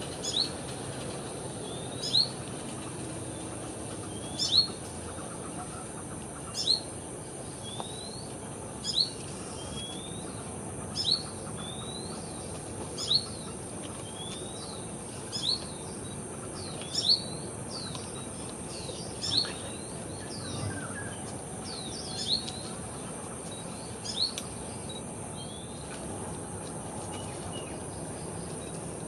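Sunbird calling: a sharp, high, rising chirp repeated about every two seconds, about a dozen times in all.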